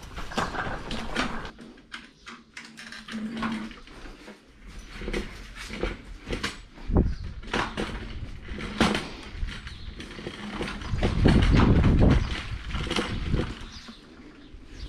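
Footsteps and the irregular knocks and clatter of boating gear being handled and carried, with a louder low rumble about eleven seconds in.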